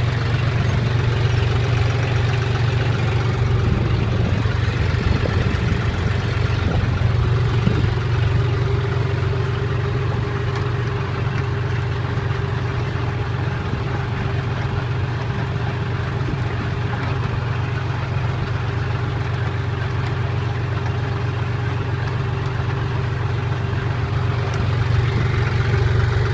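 Farm tractor engine running steadily under load while it drives a potato digger. A low, even engine note holds throughout, with a constant higher hum above it.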